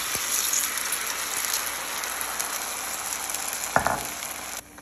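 Batter-coated mussels sizzling loudly in a hot nonstick pan, freshly poured in. There is a brief thump about four seconds in, and the sizzle cuts off suddenly near the end.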